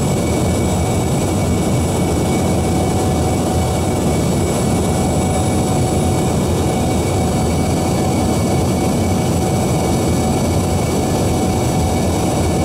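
Steady cabin noise inside an Embraer ERJ145 regional jet: a constant rush and roar from its rear-mounted turbofan engines and the airflow, with thin steady whines over it.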